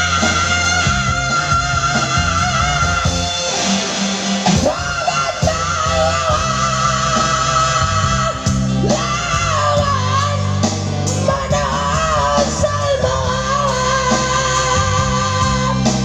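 A solo voice sings long held notes with vibrato in phrases of a few seconds each, over a backing track with a steady bass and guitar accompaniment.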